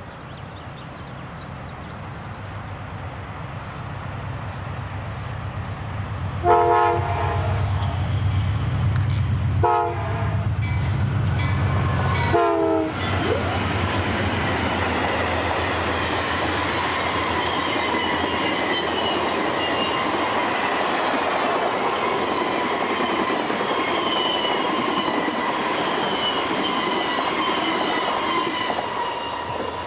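Amtrak passenger train approaching on diesel power, its engine rumble growing as it sounds its horn three times. The last blast drops in pitch as the locomotives pass, then the bilevel Superliner cars roll by at speed with a steady roar of wheels on rail and a thin whine.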